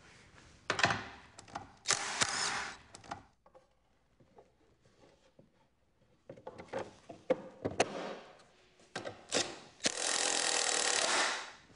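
Cordless drill/driver running in short bursts on the nuts of a snowmobile ski's carbide wear bar, with clunks and rattles of the tool and parts handled between the runs.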